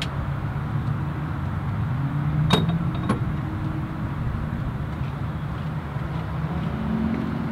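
Steady low drone of an idling engine, with two sharp clicks about half a second apart a little before the middle.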